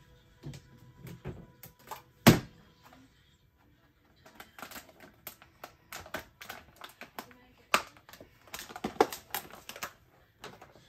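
Clicks, taps and knocks of things being handled on a kitchen counter, with one loud sharp knock about two seconds in, a short quiet gap, then a busy run of small clicks.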